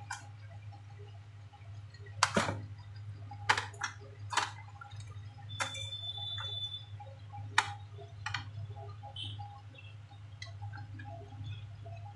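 Hard plastic clicks and knocks from a laptop's keyboard and top case being handled and set into place, about seven sharp ones spread through the first two thirds, over a steady low hum.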